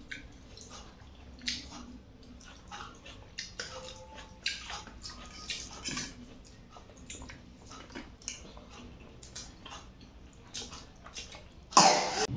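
Mukbang eating sounds: chewing and fingers mixing rice and chicken curry on steel plates, heard as a scatter of short wet clicks and squishes. Near the end comes a sudden louder, noisy burst.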